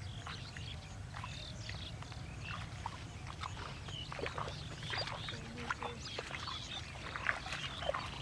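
Many small animals chirping in quick, scattered, overlapping calls over a steady low rumble.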